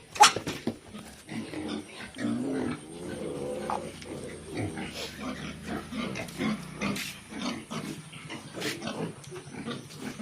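Pigs grunting in many short, overlapping calls, with one longer drawn-out call a couple of seconds in.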